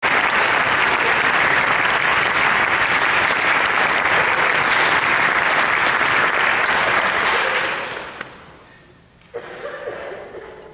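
Concert-hall audience applauding as the conductor walks out to the podium. The applause fades out about eight seconds in.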